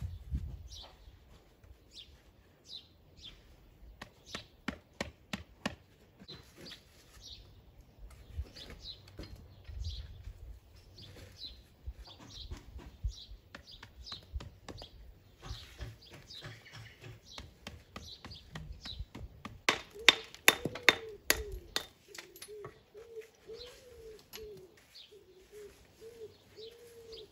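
Small birds chirping, with scattered sharp taps and knocks throughout and a burst of louder ones about twenty seconds in.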